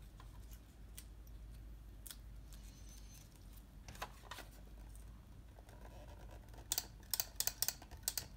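Light clicks and taps from a glue tape runner and card being handled on a cutting mat: a few single clicks, then a quick run of clicks near the end.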